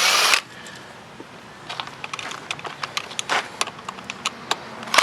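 Scattered light clicks and taps of sewing-machine metal parts being handled, after a short loud rasping noise right at the start.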